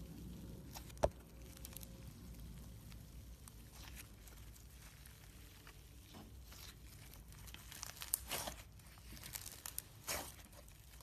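Hand-played slime being squeezed and stretched, giving scattered sticky clicks and crackling pops. There is a sharp click about a second in, and bursts of crackling come twice near the end. The maker finds the slime short of activator.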